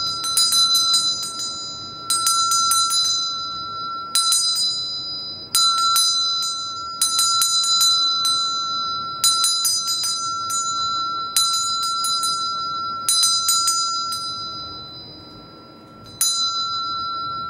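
Small brass hand bell shaken in short bursts about every two seconds, each burst a quick flurry of clapper strikes followed by one clear high ringing note that lingers between shakes. The ring dies away in a longer pause before one last shake near the end.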